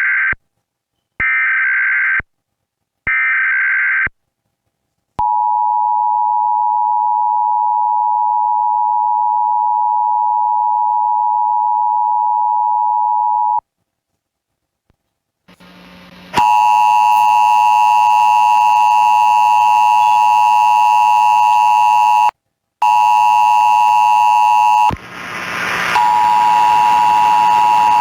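Emergency Alert System test tones. First come three short screeching bursts of the SAME digital header, then the steady two-tone attention signal for about eight seconds. After a short silence a louder, harsher version of the two-tone signal starts with hiss and a higher whine; it cuts out briefly once and crackles before continuing.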